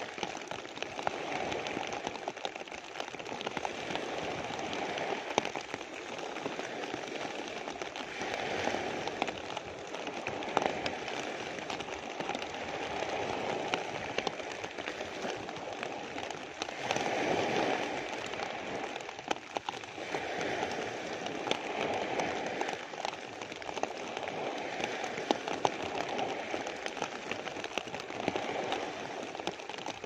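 Rain falling on a plastic sheet close overhead, a dense run of fine drop clicks over a steady hiss, with small sea waves breaking on a pebbly shore that swell and fade every few seconds.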